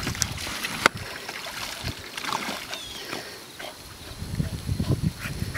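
Water splashing and sloshing in a plastic kiddie wading pool as a dog plays in it, with a sharp knock about a second in.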